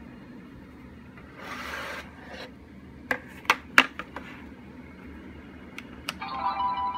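Plastic Shimajiro Bus Colors and Numbers electronic toy sliding on a table and knocking three times as it is turned over. A button click about six seconds in, and the toy's speaker starts a steady electronic tone.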